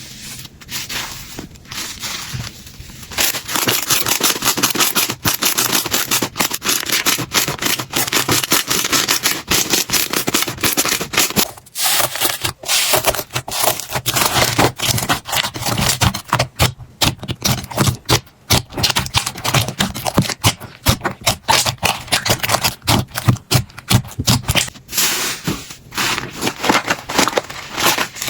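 Slime being squeezed and worked by hand, giving a dense run of crackles and clicks, softer for the first few seconds.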